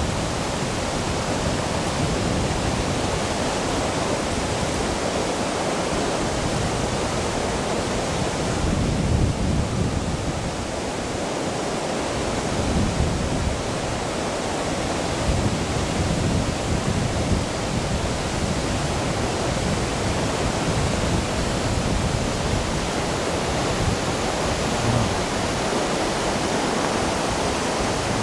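Floodwater rushing steadily over and alongside a road, a loud continuous sound of fast-moving water.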